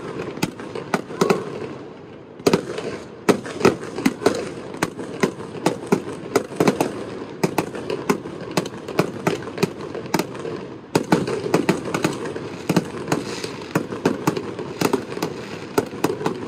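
Aerial fireworks display: a rapid, irregular string of sharp bangs and crackling pops from bursting shells, often several a second, with two short lulls.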